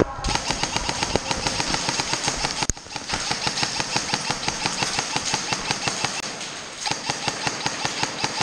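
An airsoft rifle firing on full auto: a rapid, even rattle of shots in long bursts, with short breaks between them about a third of the way in and again near the end.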